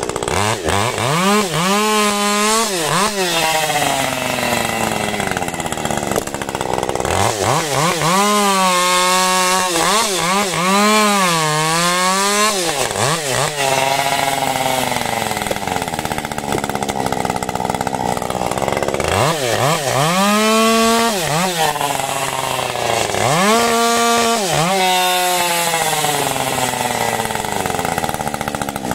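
Husqvarna 550 XP Mark II two-stroke chainsaw running hard through firewood logs. There are four spells of high revs, the pitch sagging and recovering as the chain bites, with rougher, lower running between them.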